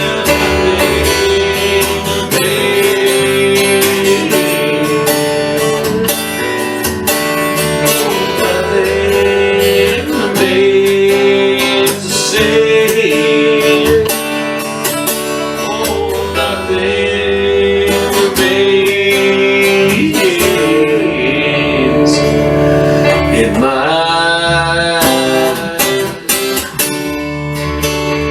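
Acoustic guitar music: strummed chords with a sustained, gliding melody line over them, in an instrumental stretch of the song with no sung words.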